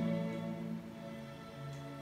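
Slow, soft background music of long held notes, with the low note changing about one and a half seconds in.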